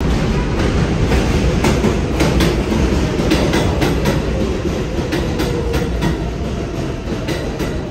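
New York City subway 4 train running on the rails: a loud steady rumble with the uneven clatter of wheels over rail joints and a faint whine underneath.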